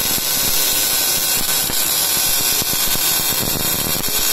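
MIG welding arc from a HAILI MIG-250S2 inverter welder, a steady crackling sizzle as the wire-fed torch runs a bead.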